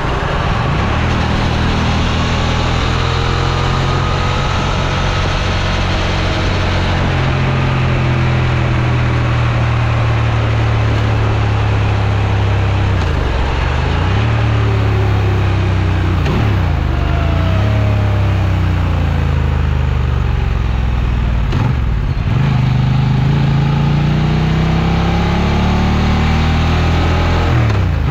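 Honda Transalp XL750's parallel-twin engine running at a steady pitch. A few times the revs dip sharply and come straight back up.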